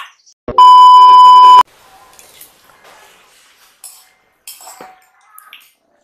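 A loud electronic beep, one steady high tone lasting about a second, starting about half a second in. After it, a spoon and fork clink and scrape faintly in a ceramic bowl of noodles.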